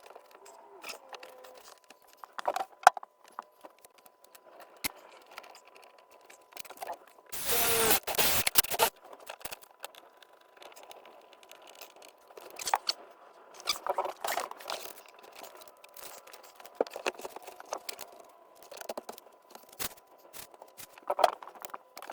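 Work on a motorhome dashboard panel: irregular scrapes, clicks and knocks, with a loud rasping burst about seven seconds in that lasts a second and a half.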